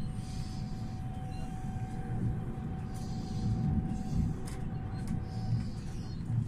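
Running noise inside a moving electric multiple-unit regional train: a steady low rumble from the wheels and track, with a thin steady whine that fades out near the end.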